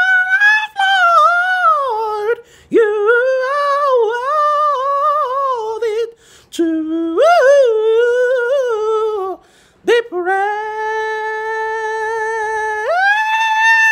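A man singing high notes with the full voice: a gliding, ornamented vocal line broken by two short breaths, ending on a long held note that leaps up an octave near the end.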